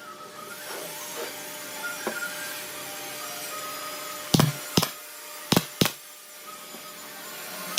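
Woodworking shop noise: a steady hiss runs throughout, and about halfway through come four sharp knocks in two quick pairs.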